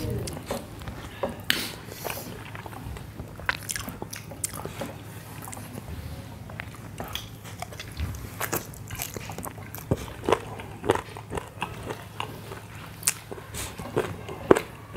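Close-miked eating sounds of someone eating buckwheat dhido with curry by hand: irregular wet mouth clicks and smacks of chewing.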